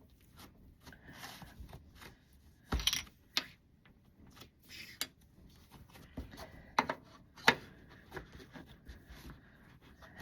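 Hands handling slime and its plastic packaging: quiet rubbing and rustling with scattered sharp clicks and taps, the loudest about three seconds in and again around seven seconds.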